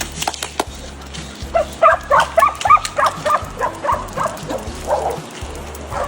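Dog barking in a rapid run of short, sharp barks, starting about a second and a half in and easing off near the end.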